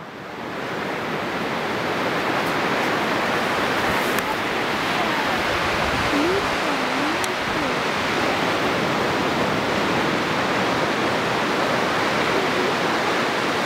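Ocean surf on a beach: a steady, even hiss of breaking waves.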